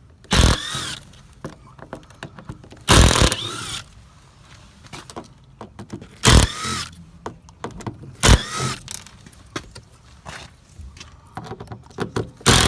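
Cordless drill/driver backing out the frame screws, about five short runs a few seconds apart, each winding up and down in pitch, with small clicks between them.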